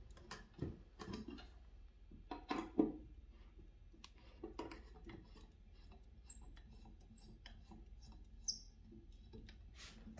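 Hand screwdriver backing Phillips-head screws out of a wood chair frame: scattered small clicks and creaks, a sharper knock nearly three seconds in, and a few brief high squeaks later on.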